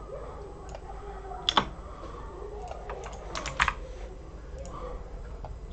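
A few scattered computer keyboard clicks, loudest in a quick cluster about three and a half seconds in.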